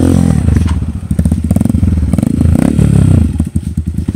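Motorcycle engine revving hard in several rising and falling bursts, with a few clattering knocks.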